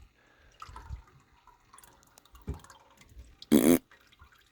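Engine oil dripping and trickling from the drain, with a few soft knocks. A brief loud sound comes about three and a half seconds in.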